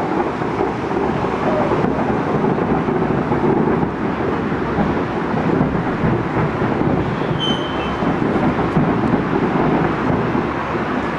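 Distant fireworks barrage: many overlapping bursts blending into a continuous rumble.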